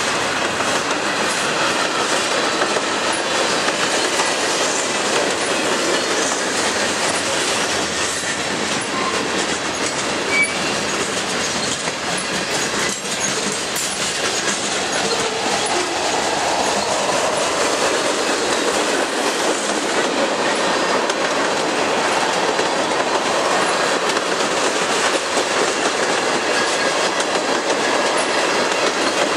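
Freight train of tank cars and boxcars rolling past at speed close by, its wheels running steadily over the rails.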